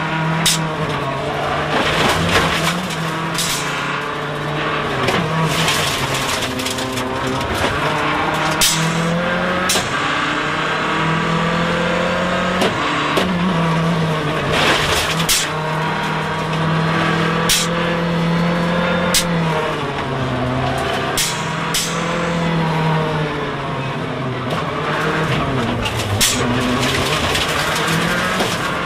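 Mitsubishi Lancer WRC05 rally car's turbocharged four-cylinder engine heard from inside the cockpit, revving hard and dropping back again and again through gear changes at stage speed, with frequent sharp cracks along the run.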